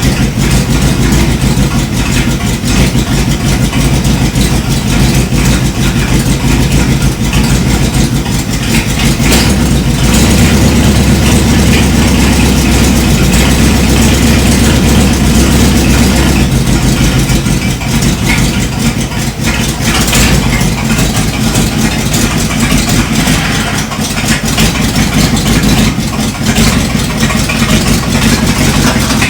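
1978 Dodge Power Wagon's engine running steadily. About ten seconds in, its low rumble grows deeper and louder for several seconds, then settles back.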